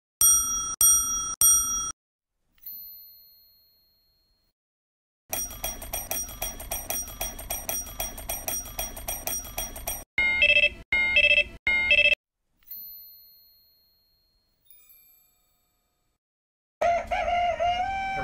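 Cartoon sound effects of a mechanical alarm clock bell: three rings at the start, single rings that fade away, about five seconds of rapid ringing, then four short rings. A rooster crows near the end.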